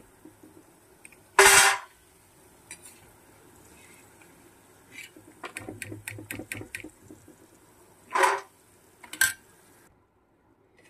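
Steel slotted spoon knocking and scraping against an iron karahi while lifting fried nimki out of the oil: a loud clatter about a second and a half in, a run of small clinks around six seconds, and two more clatters near the end.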